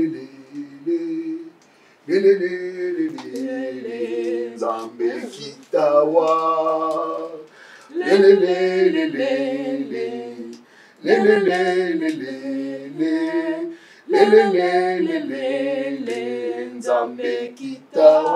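A man singing an unaccompanied worship song in short phrases of held, wavering notes, with brief pauses between phrases.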